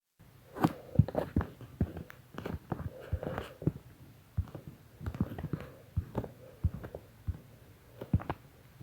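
Irregular soft knocks and taps, one to a few a second, with short pauses between clusters.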